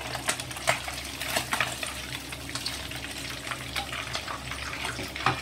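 Whole yellow croaker deep-frying in hot oil in a wok: a steady sizzle full of irregular crackling pops. The heat has been turned up high for the last minute to drive out the oil and crisp the skin.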